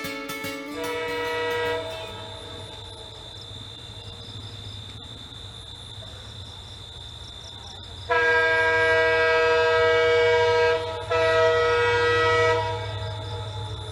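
EMD WDP4 (GT46PAC) diesel-electric locomotive sounding its multi-note air horn: a short blast about a second in, then a long loud blast and, after a brief break, a shorter one. A low engine rumble and a steady high whine run underneath.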